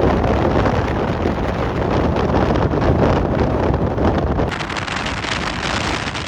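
Passenger train running at speed, heard from on board: a loud steady rush of wind on the microphone over the train's running noise, easing somewhat about four and a half seconds in.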